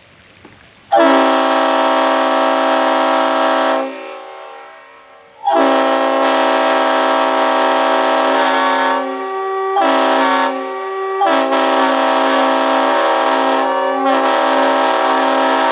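Locomotive air horn sounded in the grade-crossing pattern: two long blasts, one short, then a final long blast.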